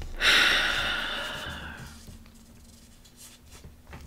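A person's long breathy exhale, like a sigh, starting suddenly and fading away over about two seconds.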